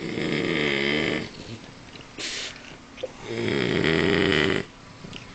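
French bulldog snoring like a man: two long snores whose pitch dips and then rises, about three seconds apart, with a short breathy puff between them. This loud snoring is typical of the breed's flat-faced, narrow airway.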